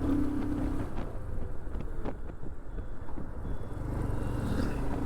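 Royal Enfield Himalayan motorcycle engine running while riding, with wind rushing over the microphone. A steady engine note fades after about a second and comes back near the end.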